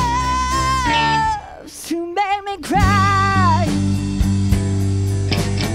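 Live band playing a rock song with electric guitars, bass and drums: a long held lead note breaks off about a second and a half in, the band drops back briefly, then a short lead phrase with vibrato comes in and the full band carries on.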